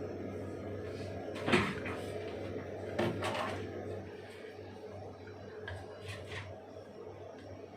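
Two sharp knocks about a second and a half apart, the first the louder, followed by a few faint clicks, over a steady low hum.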